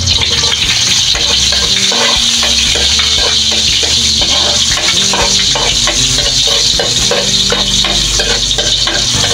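Chopped garlic sizzling in a little oil in a wok, with a metal spatula scraping and tapping against the pan as it is stirred: the start of the sauté.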